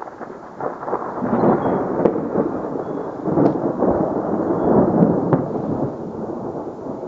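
Rolling thunder that builds about a second in, rumbles on in several surges, and eases off near the end.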